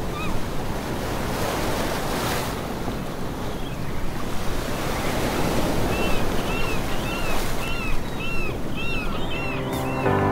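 Ocean surf washing steadily, with a bird's short rising-and-falling calls repeating about twice a second from about six seconds in. Music begins right at the end.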